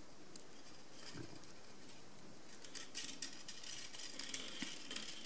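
Faint light clicks and scratches of thin wire being threaded and wrapped around the base of a beaded rose, with glass beads ticking against each other, coming more thickly in the second half.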